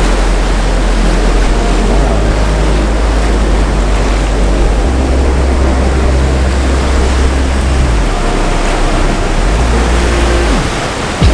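Loud, steady rush of breaking ocean surf, with background music underneath: a sustained low bass that shifts to a new note about five and eight seconds in.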